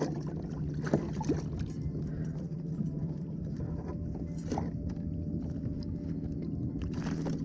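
Steady low hum over water and wind noise, with a few soft clicks and knocks from the fishing rod and line as a hooked fish is handled on the kayak.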